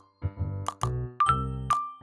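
Background music: a light tune of short, crisp melody notes over a bass line.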